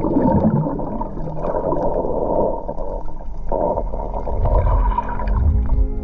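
Muffled underwater sound from a submerged camera in shallow sea water: low rumbling and gurgling of water moving around the microphone.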